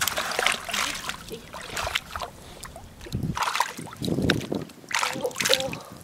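Shallow seawater splashing in irregular bursts as a spotted scat thrashes at the surface and metal tongs stab and drag through the water after it.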